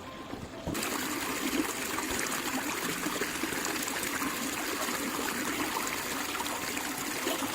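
Water running with a steady rushing hiss that starts abruptly just under a second in and holds evenly.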